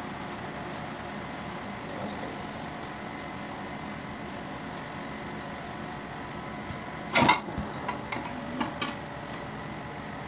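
Steady mechanical hum in the room, with one sudden loud knock about seven seconds in and a few lighter clicks after it, as raw fish pieces are handled on a steel plate.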